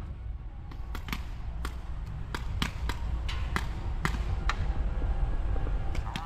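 Paintball markers firing during a game: a string of sharp, irregular pops, roughly three a second, over a low rumble.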